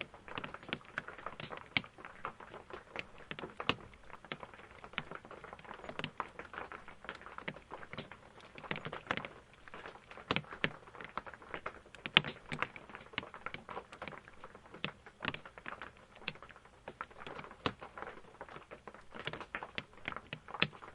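Rain heard from inside an RV: a dense, irregular patter of drops tapping on the RV's roof, with occasional louder single drops, the sharpest about midway.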